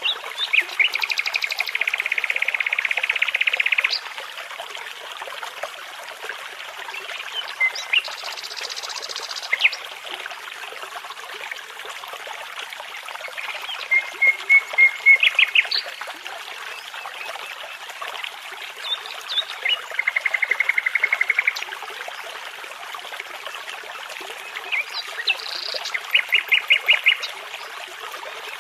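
Nightingale singing in separate phrases of rapid trills and repeated notes, each a second or two long with pauses of a few seconds between. Behind it a brook babbles steadily.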